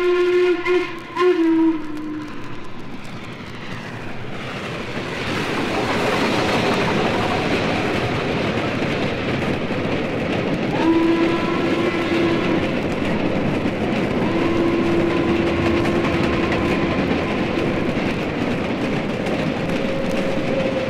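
Steam locomotive whistle sounding at the start and ending on a lower note, then the heavy rush of a train running by swells up and holds loud. The whistle sounds again twice over the train noise: a short blast about halfway through and a longer one a few seconds later.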